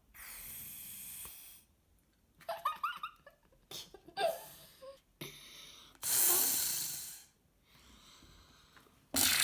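Homemade glue slime being squeezed and stretched in the hands: wet squelches and airy, breath-like pushes in separate bursts, with a few short squeaky pops from trapped air about three and four seconds in.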